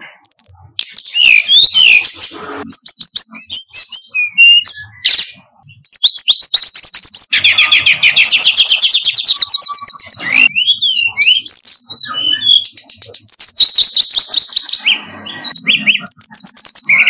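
Brown-chested jungle flycatcher singing a loud, varied song of rapid trills, chirps and whistled glides, broken by a few short pauses.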